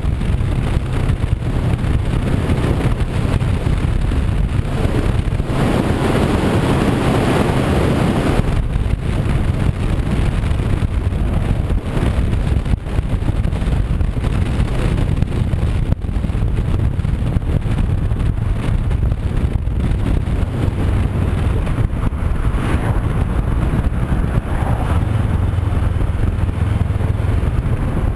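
Honda CB500X's parallel-twin engine running while riding, mixed with wind rushing over the onboard camera microphone. A louder rush of noise comes about six to eight seconds in, and an even engine hum stands out more clearly near the end.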